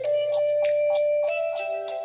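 Background music: a held keyboard/organ-like chord with light, regular percussion ticks.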